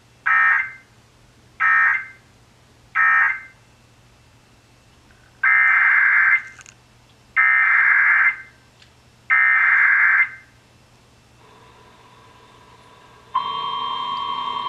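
Emergency Alert System digital data bursts: three short screeching bursts, the end-of-message code of the warning just read, then three longer bursts, the header of the next warning. About 13 seconds in, the loud steady single-pitch attention tone begins.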